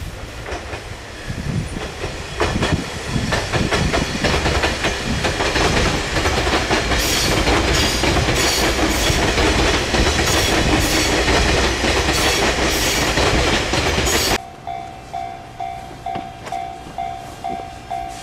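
E351 series electric train passing close by, its wheels clattering rapidly over the rail joints for most of the time. Near the end the sound cuts off abruptly to a level-crossing warning bell, ringing steadily in quick, even strokes.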